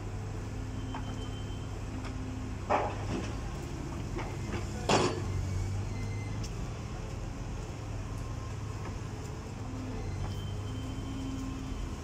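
Diesel engine of a Liebherr 906 wheeled excavator running steadily as it works, with two loud short knocks about two seconds apart a few seconds in.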